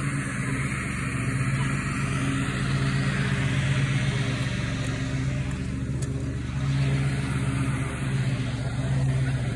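Longboard wheels rolling over coarse asphalt: a steady rumble with a low hum, swelling and easing a few times.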